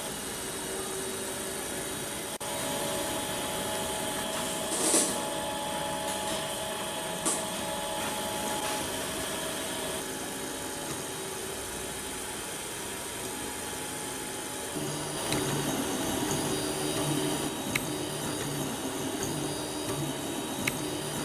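Prusa i3 kit 3D printer running: its stepper motors hum in steady tones that change pitch every few seconds as the moves change, over a steady hiss. About two-thirds of the way in the motion turns into a rapid low pulsing.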